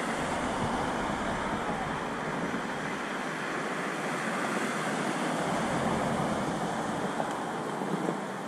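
Wind blowing across the action camera's microphone: a steady rushing noise that swells and eases a little.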